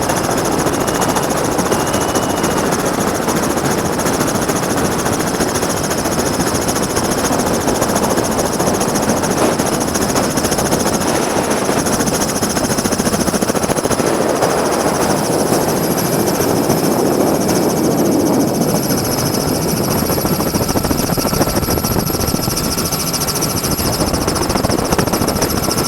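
Helicopter's turbine engine and rotor noise running steadily, a dense loud rush with a constant high-pitched turbine whine over it.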